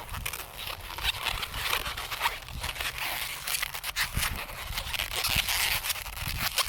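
Latex modelling balloon being twisted and handled, squeaking and rubbing under the fingers, with short creaks and pops of the rubber.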